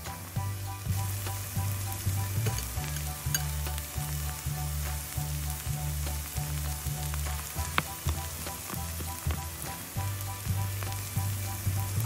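Food frying and sizzling in a tiny pan on a miniature stove, with small scattered clicks and pops. Background music plays under it.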